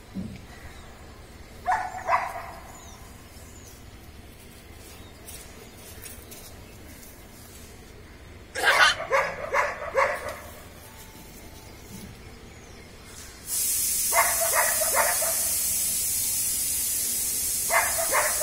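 Young puppy giving short, high-pitched yapping barks in clusters: one bark early, a quick run of barks about halfway through, and a few more near the end. A steady hiss comes in about two-thirds of the way through and stays.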